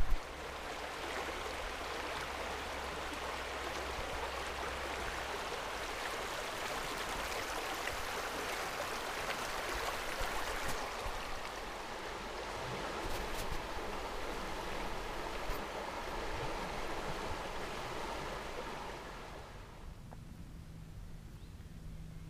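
River water rushing steadily past, a continuous hiss of flowing water that dies down about twenty seconds in.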